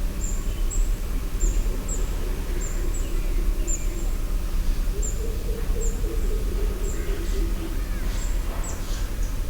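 Village outdoor ambience: a bird giving short, high chirps over and over, about one every half-second to second, over a steady low rumble.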